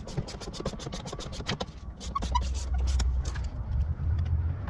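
Socket ratchet clicking in quick runs as the mirror's 10 mm mounting nuts are tightened through the door frame. A low rumble sets in about two seconds in.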